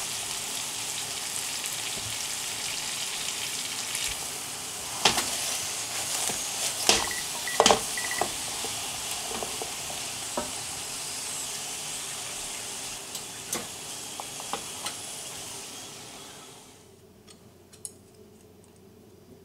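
Butter, sugar and soy sauce glaze sizzling and bubbling in a frying pan as sweet potato chunks are tossed through it, with a few sharp clicks of chopsticks against the pan about five to eight seconds in. The sizzling stops about 17 seconds in, leaving quiet room tone with a few faint ticks.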